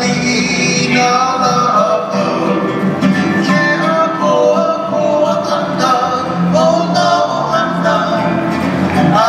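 Music for a dance: a sung melody over guitar-like plucked-string accompaniment, playing steadily throughout.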